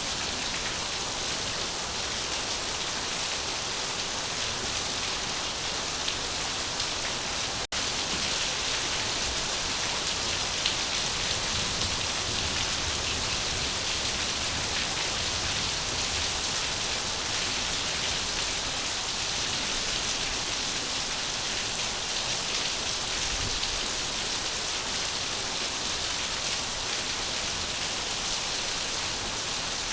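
Steady rain falling on a surface, an even dense hiss with no lulls. The sound drops out for an instant about eight seconds in, a cut in the recording.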